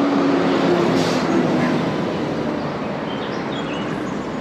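A passing vehicle makes a loud, steady rush of noise that slowly fades away, with a few faint bird chirps around the middle.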